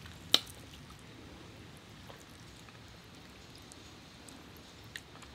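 Quiet sounds of hands pulling apart cooked lobster meat, with one sharp click shortly after the start and a fainter click near the end.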